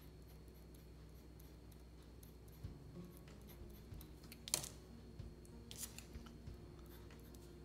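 Pencil drawing on paper: faint scratchy strokes start about a third of the way in. There are two sharp clicks a little over a second apart in the second half, the first the loudest sound.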